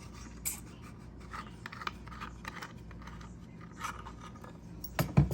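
Small clicks, taps and scrapes of parts being handled as a base plate is fitted onto a compact router, with a louder cluster of knocks near the end.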